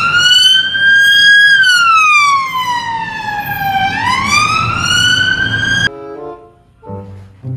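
British police car siren sounding its wail: one tone slowly rising and falling, about one and a half cycles, then cut off abruptly about six seconds in.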